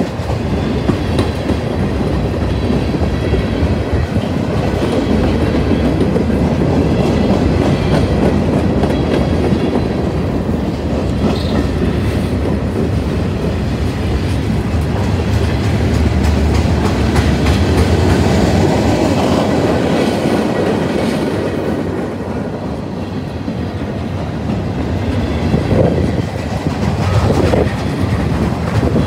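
Freight train of boxcars, gondolas and covered hoppers rolling past close by: a steady loud rumble of steel wheels on the rails, with faint thin squeals and a couple of louder knocks near the end.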